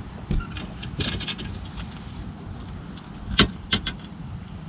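Handling noises on a fishing boat's deck: a scatter of sharp knocks and clicks, the two loudest about three and a half seconds in, over a steady low rumble.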